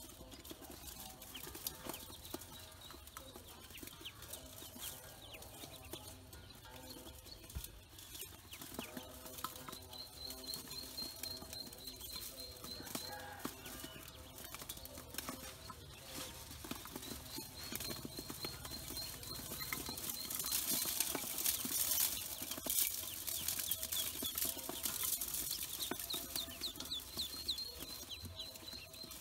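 A crowd of ducklings peeping continuously, with small pecking and scrabbling clicks in a metal bowl of feed; the peeping grows louder and busier about two-thirds of the way through.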